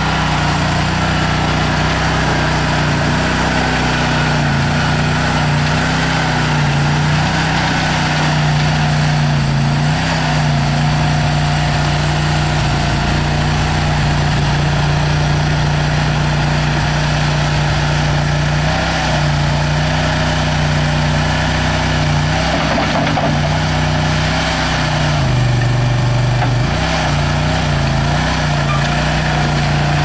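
Kohler Command Pro 27 hp V-twin gas engine of a Boxer Brute 427 mini skid steer running steadily at working speed. Its pitch dips briefly now and then, most clearly about 25 seconds in, as the engine takes load while the loader digs.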